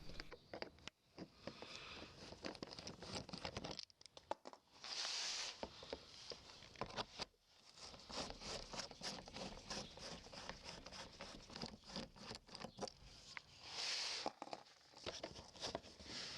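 Hand tools clicking and scraping on the small 10 mm bolts of a car's turn-signal access door as they are undone: many light irregular clicks, with two short hissing scrapes, one about five seconds in and one near the end.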